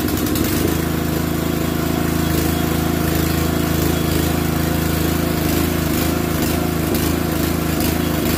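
Ichiban 168F-1 6.5 hp gasoline engine driving a pressure-washer plunger pump, running loud and steady after settling about a second in. The set is very noisy and vibrates hard, because the pump is not yet aligned with the engine.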